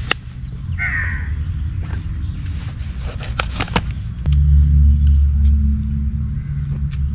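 A kitchen knife cutting tomatoes on a metal plate, giving a few sharp clicks, over a steady low rumble that gets louder about four seconds in. A crow caws once near the start.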